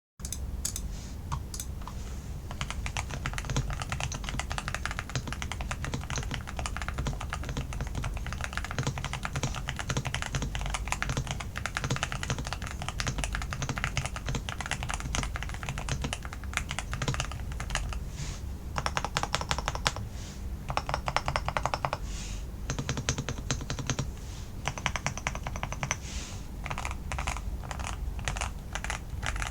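Custom GMK67 mechanical keyboard with linear Gateron G Pro 2.0 Yellow switches and GMK Apollo-style keycaps being typed on steadily, with fast runs of rapidly repeated key presses in the second half.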